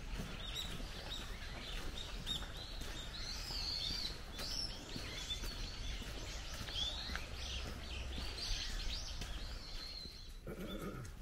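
Many small birds chirping and calling over one another, high-pitched and overlapping, above a steady low rumble; the chirping thins out near the end.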